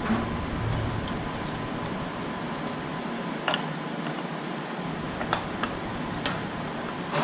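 A few scattered light clicks and taps of a metal hand tool and mount parts being handled, over a steady background hum.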